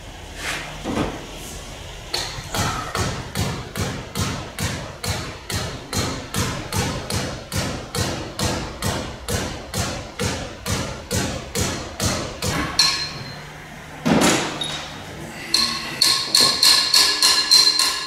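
Steady hammer blows, about two a second, then a pause and one heavier thud; near the end quicker blows that ring like metal.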